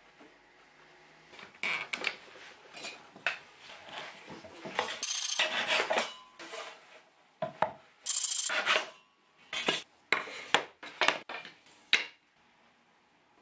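Hand saw cutting through a wooden board in rasping back-and-forth strokes, then several sharp wooden knocks near the end as pieces of wood are set down on the workbench.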